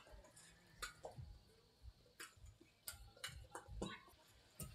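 Faint sharp clicks of badminton rackets striking a shuttlecock in a rally, about seven hits, mostly about a second apart.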